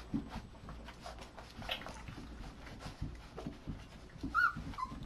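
Young puppies scrambling about, soft scattered taps and rustles, with a brief high puppy squeak, then a second shorter one, near the end.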